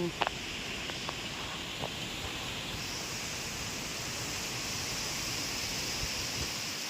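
Heavy wind blowing steadily with a rustling hiss that brightens about three seconds in, and a few sharp clicks in the first two seconds.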